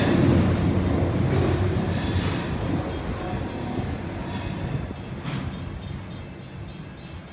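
Providence and Worcester freight train rolling past and away, a low rumble with intermittent wheel squeal that fades steadily.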